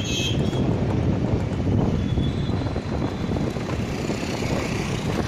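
Road noise from a moving vehicle at speed on a highway: a steady low rumble with wind buffeting on the microphone.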